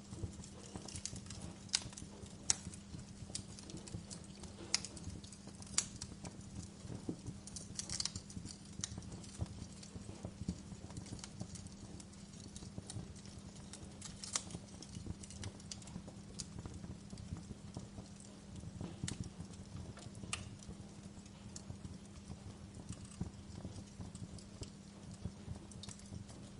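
Wood fire burning in a fireplace, crackling: irregular sharp pops and snaps at uneven intervals over a steady low hum.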